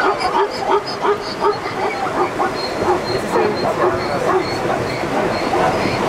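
A herd of plains zebras calling: many short, overlapping barking yips, several a second.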